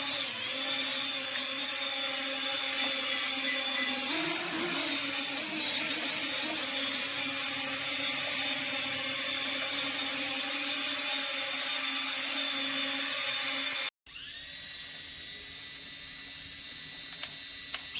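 Small toy quadcopter drone's propeller motors whining steadily. After a sudden break about 14 seconds in, the whine comes back quieter, with a thinner, steady pitch.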